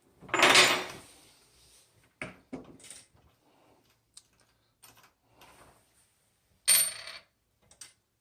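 Metal clinks and clatters of faucet parts and tools being handled during a faucet repair: a loud clatter about half a second in, a few light clicks, and another sharp clatter near the end.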